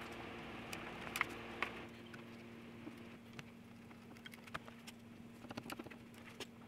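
Small clicks and clinks of screws being picked from a pile and turned in with a hand screwdriver to fasten concealed hinges onto a cabinet door, a couple of sharper clicks about a second in and a cluster near the end, over a faint steady hum.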